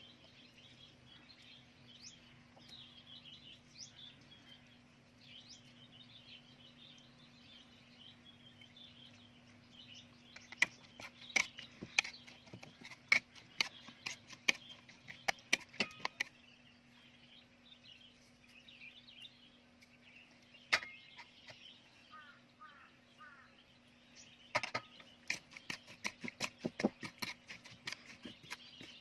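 Small birds chirping, then from about ten seconds in, runs of sharp knocks and clicks, several a second, which are the loudest sounds; a faint steady hum underneath.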